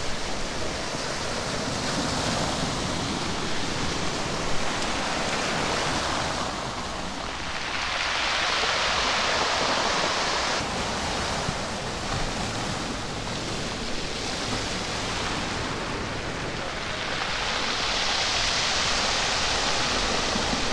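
Small waves breaking and washing up a black pebble beach, a steady wash of surf that swells louder twice, around the middle and near the end, as bigger waves run up the stones.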